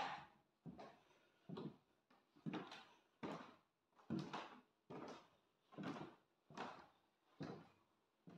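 Footsteps on old wooden floorboards at a slow, steady walking pace, a little more than one step a second.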